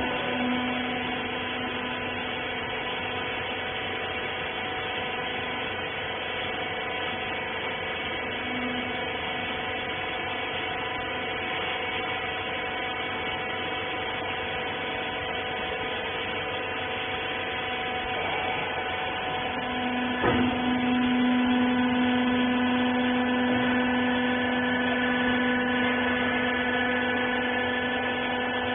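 Hydraulic rag baler's electric motor and pump running with a steady hum. A knock comes about twenty seconds in, and after it the hum grows louder.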